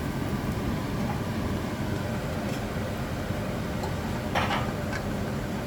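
Steady low rumbling background noise in a kitchen, with a brief clatter about four and a half seconds in.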